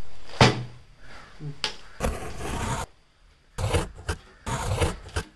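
A courier mailer being rustled and torn open by hand: a series of short crinkling, ripping and scraping sounds with brief pauses between them.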